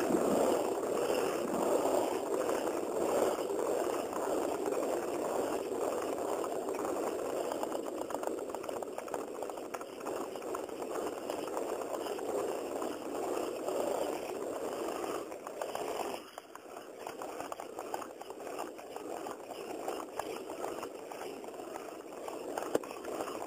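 RipStik caster wheels rolling over pavement, with a rough, clicking abnormal noise from one wheel that the rider at first took for a failing bearing. The noise fades gradually and drops sharply about two-thirds of the way through.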